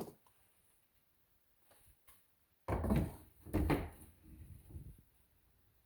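Near silence, then about two and a half seconds in, two loud clunks less than a second apart followed by lighter knocking, as the cover over the oil filter of a 2011 Audi Q7 TDI is pulled off and handled.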